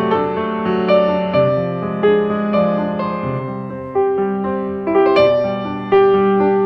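Slow, gentle piano music: sustained notes struck about once or twice a second.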